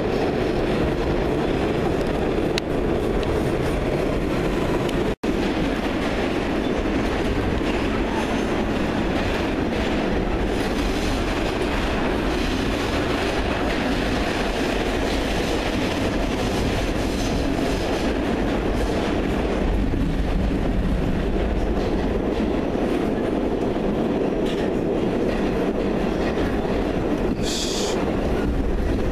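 Train running on the rails, heard from inside the car as a steady, loud rumble of wheels and car body. The sound cuts out for an instant about five seconds in, and a short high hiss comes near the end.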